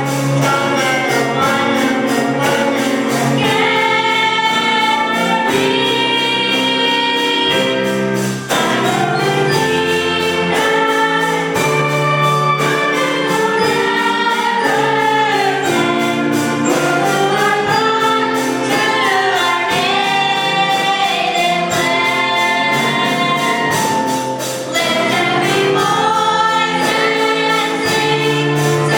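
Choir singing a song in harmony over a steady beat.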